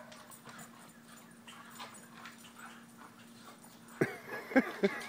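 English Springer Spaniels barking excitedly at a squirrel, with several sharp barks and yips close together starting about four seconds in, after a few quieter seconds.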